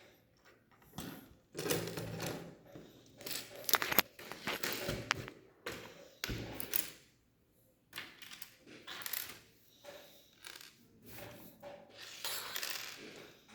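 Plastic Lego pieces being handled, clicking and clattering against each other in irregular runs, with a short lull a little past the middle.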